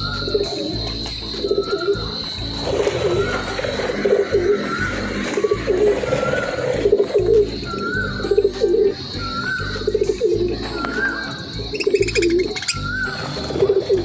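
Doves cooing over and over, a low coo roughly once a second, with background music running underneath.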